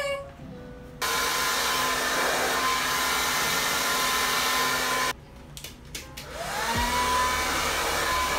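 Handheld hair dryer blowing hair, a loud steady rush of air with a high motor whine. It cuts off abruptly about five seconds in, then after a few clicks starts again, the whine rising in pitch as the motor spins up.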